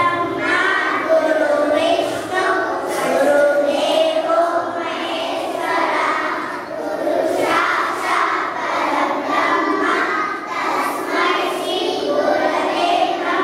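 A group of young children singing a prayer together in unison, their voices held on sustained notes.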